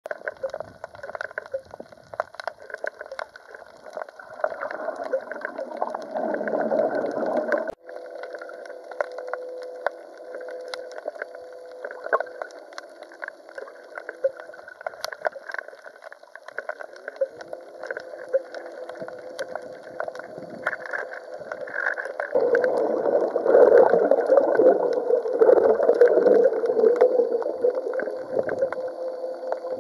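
Muffled underwater sound through a waterproof camera housing: water sloshing and gurgling with scattered sharp clicks. It swells louder twice, cutting off abruptly about eight seconds in, with a faint steady hum in the quieter middle stretch.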